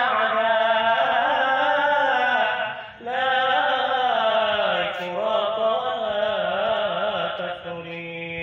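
A man's solo voice chanting Arabic verse into a microphone in long, ornamented melodic phrases. It breaks briefly for breath about three seconds in, and holds one long steady note near the end.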